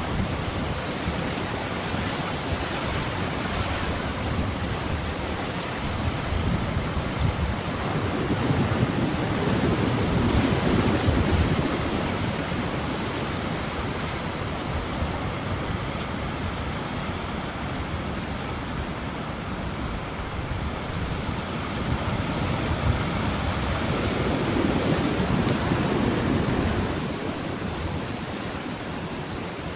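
Atlantic swell breaking against sea cliffs: a steady rush of surf that builds into louder surges twice, about a third of the way in and again near the end.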